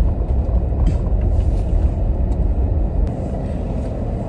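Low road and engine rumble inside the cabin of a moving BMW car, easing slightly about three seconds in.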